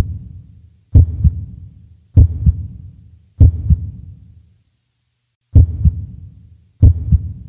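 Heartbeat sound effect: deep paired lub-dub thumps repeating about every 1.2 seconds, with a pause of about two seconds halfway through.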